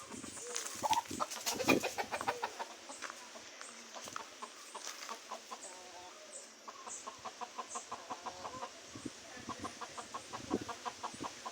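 Domestic chickens clucking: a few louder calls in the first two seconds, then quick runs of short clucks.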